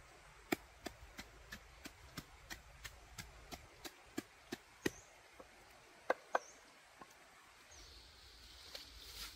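A knife chopping food on a cutting board, about three steady strokes a second, stopping about five seconds in. Two louder knocks follow about a second later, and a faint hiss rises near the end.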